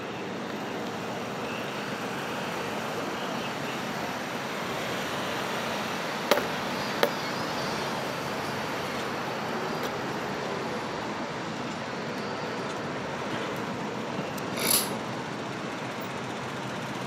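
Steady street traffic noise of cars passing on a city road. Two sharp clicks come about six and seven seconds in, and a short high-pitched sound near the end.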